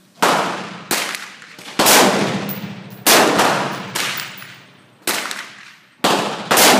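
AR-15 rifle firing a series of shots, about eight in under seven seconds at irregular spacing, each fading away in a long echo.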